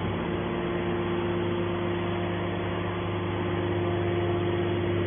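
Scrap metal baler's machinery running with a steady hum of several fixed pitches that holds level throughout.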